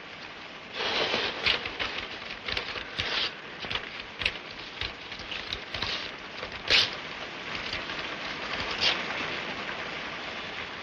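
Steady rain falling, with paper crackling and rustling as it is handled and folded, starting about a second in; the sharpest crackle comes a little past the middle.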